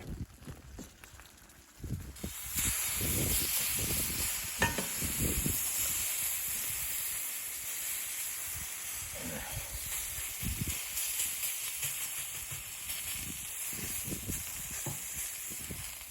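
Food sizzling in a hot pan, the sizzle starting suddenly about two and a half seconds in, with soft knocks of handling and stirring.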